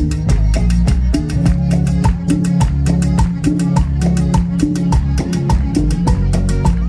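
Live band playing Latin dance music with accordion, guitars and drum kit over heavy bass, to a quick, even beat.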